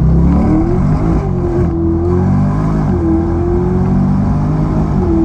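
Chevrolet Corvette C8's V8 through a custom exhaust, accelerating hard from a launch-control start. It climbs in pitch through quick upshifts about every second or two, with a smooth tone.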